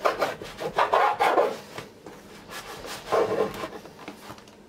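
A knife sawing through a freshly baked Ramadan pide on a wooden cutting board, its crisp sesame-topped crust rasping under the blade. The cutting strokes are strongest in the first second and a half, come again in a burst about three seconds in, then trail off.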